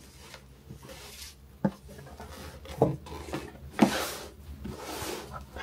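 A Louis Vuitton box being opened by hand: a few light knocks and taps of the box and lid, then rustling of the packaging for a second or so, about four seconds in.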